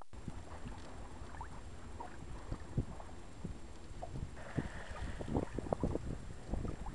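Wind buffeting the microphone over water splashing and sloshing irregularly along the hull of a sailboat under way under sail.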